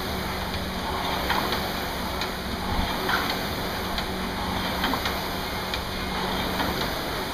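Air-resistance rowing machine in use at a hard pace: the fan flywheel gives a steady rushing whoosh that swells with each stroke, with light rhythmic clicks about once a second.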